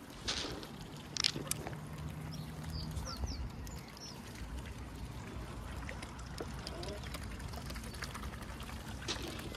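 Ducks quacking, with a couple of short splashy noises in the first second and a half and light water sounds.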